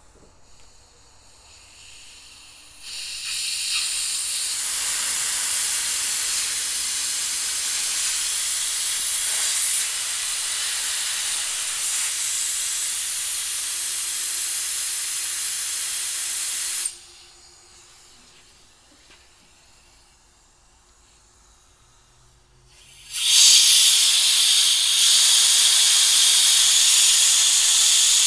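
Pressurized air hissing through a car's AC condenser during a flush, in two long blasts: one for about fourteen seconds, then after a pause a louder one about 23 seconds in. The steady flow shows the condenser passing air freely, with no blockage.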